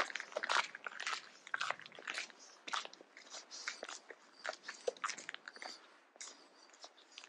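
Footsteps crunching in snow at a walking pace, about two steps a second, louder in the first second and softer toward the end.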